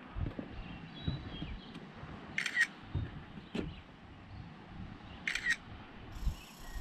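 A camera shutter clicks twice, about three seconds apart, each a quick double click. Soft footsteps on a trail thud in the background.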